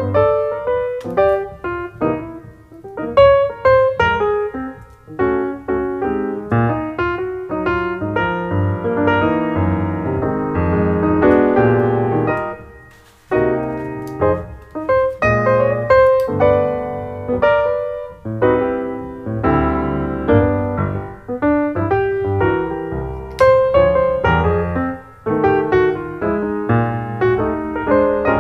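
Background music: solo piano playing a melody of separate notes over low bass notes, with a short break about halfway through.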